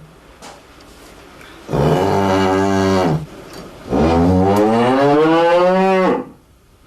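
A cow mooing twice: a call of about a second and a half starting near two seconds in, then a longer call of just over two seconds that rises and then falls in pitch at its end.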